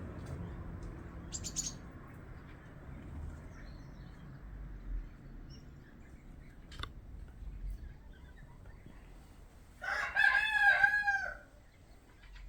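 A loud bird call near the end, a run of about five rising-and-falling notes lasting about a second and a half, over a low, steady outdoor background with a single sharp click about halfway through.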